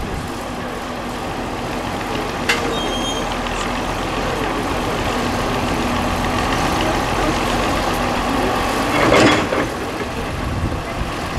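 Vintage crawler face-shovel excavator running steadily, with a sharp metallic clank about two and a half seconds in. Near the end a louder, rougher rush comes as its bucket swings down into the rock pile.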